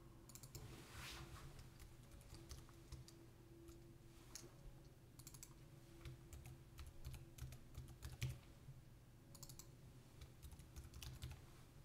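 Faint typing on a computer keyboard, scattered keystrokes and clicks coming in small clusters, over a low steady hum.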